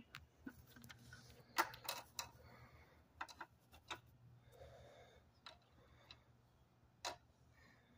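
Light, irregular clicks and taps of small plastic toys being set down in a plastic dollhouse, about ten in all.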